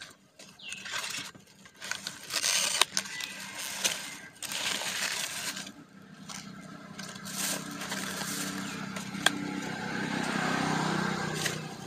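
Thin plastic bags rustling and crinkling while polystyrene foam takeaway boxes are handled and opened, in irregular bursts with a few sharp clicks and a longer stretch of rustling near the end.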